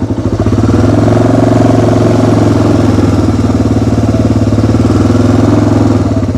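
Small ride-on vehicle's engine, throttled up about half a second in and running steadily under load, then dropping back to a slow, pulsing idle just before the end.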